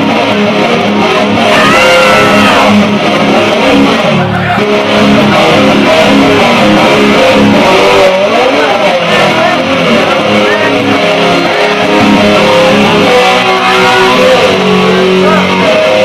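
Electric guitar played lap-style with a slide through a loud amplifier: sustained low notes with higher notes gliding up and down in pitch.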